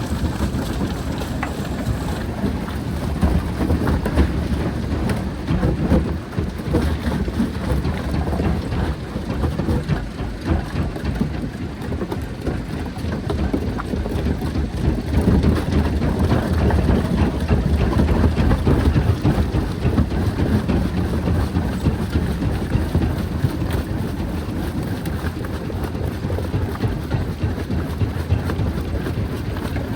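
Jaw crusher running and crushing rock: a continuous dense grinding and crackling of breaking stone over a deep, steady machine drone.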